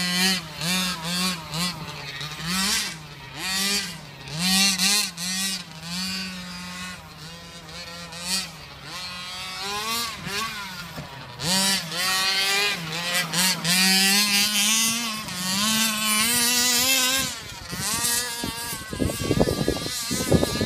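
Two-stroke gas engine of a 1/5-scale Redcat RC short-course truck, revving up and down over and over as it is driven hard around a loose dirt track. Near the end there is a brief rush of noise.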